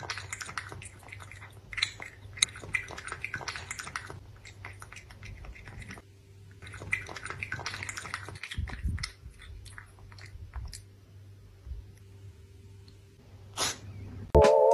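Cat lapping water from a glass: rapid, wet tongue clicks in two bouts, with a short pause about six seconds in.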